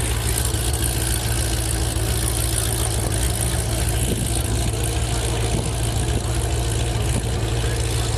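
Car engines idling steadily, a deep low rumble under an even hiss.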